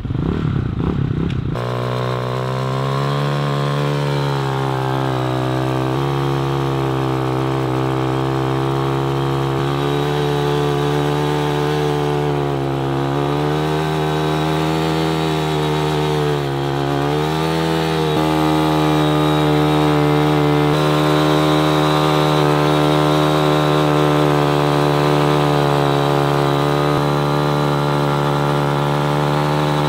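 A 250cc single-cylinder four-stroke dirt bike engine held at high revs while standing still, run hard as a so-called warm-up. The pitch sags and recovers a few times, then holds a little higher and louder from about 18 seconds in.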